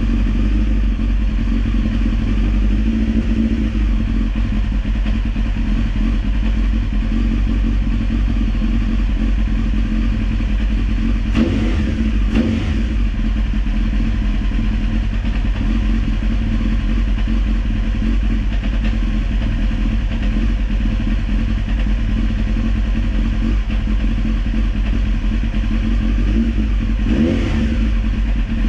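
Honda CBR900RR Fireblade's inline-four engine idling steadily while its carburettors are being balanced. The engine note rises briefly twice, about eleven seconds in and near the end.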